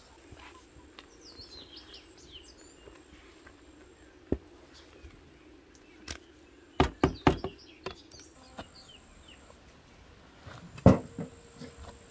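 A cluster of four or five sharp knocks about seven seconds in: a wooden paddle striking a large metal pot while peach juice is stirred in it. One more loud knock comes near the end, and small birds chirp with short falling calls between them.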